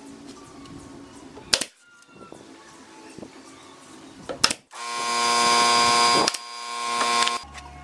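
Pneumatic nail gun firing twice, two sharp shots about three seconds apart, driving nails into a pine workbench frame. A loud hissing rush with steady tones follows for about two and a half seconds, swelling again near the end.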